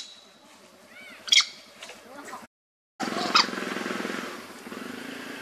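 Two short, sharp squeals from a baby macaque, one about a second in and one after a half-second dropout to silence. A steady low buzzing drone runs beneath the second half.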